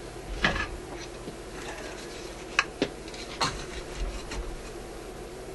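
A handful of light clicks and knocks from a metal helping-hand soldering stand being picked up and set down on a workbench, two sharp ones close together about two and a half seconds in, over a steady low hum.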